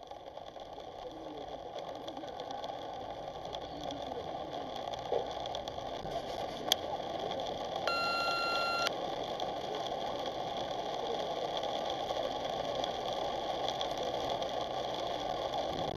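Car cabin noise from a car driving on a rain-soaked road: a steady hiss of tyres and engine that grows louder as the car pulls away and gathers speed. A sharp click about seven seconds in, then a single electronic beep lasting about a second.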